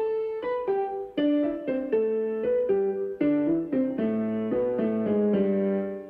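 Piano music playing a melody over chords, a new note or chord about every half second.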